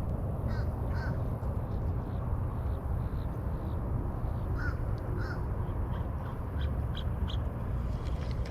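Crow cawing: two pairs of short calls, the calls in each pair about half a second apart, with the second pair coming about four seconds after the first, over a steady low background noise.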